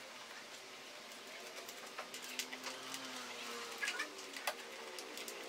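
Sharp small clicks and taps of metal chair parts and screws being handled and fitted into an office chair's seat mechanism during assembly, a few irregular knocks with the loudest about two-thirds of the way through. A faint, low, wavering tone sits underneath.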